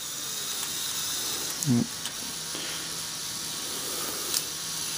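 Lego Power Functions M-motor running with a steady hum from about two seconds in. A sharp click comes near the end as the crane's control lever is worked.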